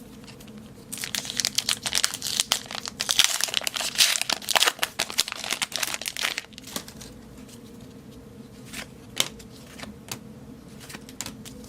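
Foil wrapper of a Topps baseball card pack being torn open and crinkled, a dense stretch of crinkling from about a second in until past six seconds, followed by a few light rustles and taps.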